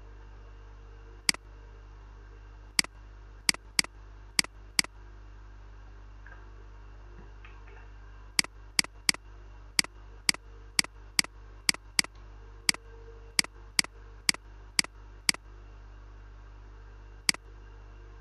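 Computer mouse button clicking: about twenty sharp press-and-release clicks, a few on their own and most in two quick runs, over a steady low electrical hum.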